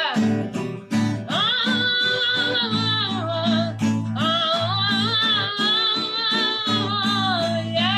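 Acoustic guitar strumming a song's accompaniment, with a high wavering melody line held over it in two long phrases.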